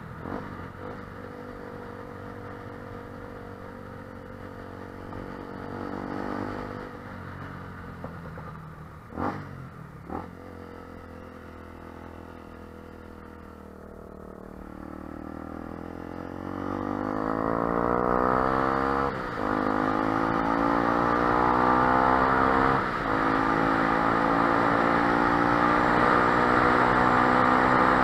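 Yuki SM 125 motorcycle's single-cylinder 125 cc engine through an aftermarket universal end-can exhaust, heard from on board: running at low revs while slowing, then accelerating from a little past halfway, the revs climbing and the sound getting louder, with two brief dips at gear changes.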